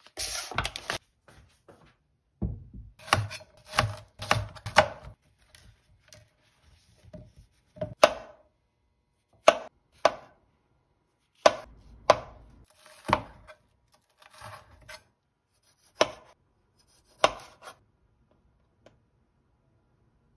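Chef's knife slicing button mushrooms on a cutting board: sharp knocks of the blade hitting the board. There is a quick run of cuts a few seconds in, then single cuts about one every second or so.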